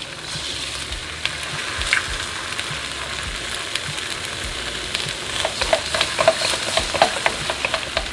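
Eggs and vegetables frying in hot sesame oil in a wok, sizzling steadily. From about five seconds in, a run of quick sharp clicks and scrapes joins the sizzle.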